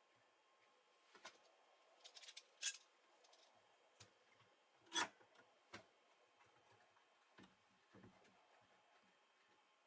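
Faint, scattered clicks and light knocks of wood and small metal hardware being handled, with two louder ones about three and five seconds in.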